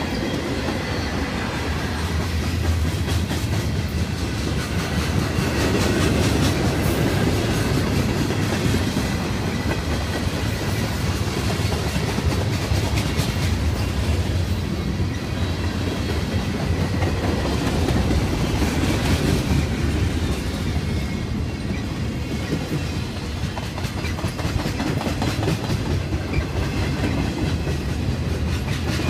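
Freight cars rolling past: steel wheels running on the rails in a steady, continuous noise, with occasional clicks.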